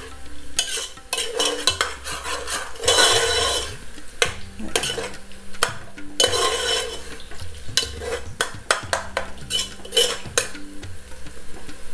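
A spoon stirring and scraping frying onions around a stainless steel pot, with frequent clinks and knocks against the pot's sides and base over a sizzle from the hot oil.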